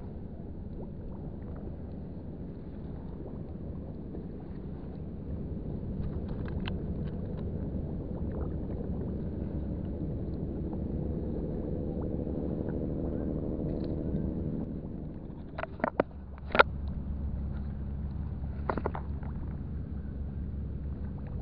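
Low drone of a boat engine running, swelling over several seconds and then fading away, followed by a few sharp clicks.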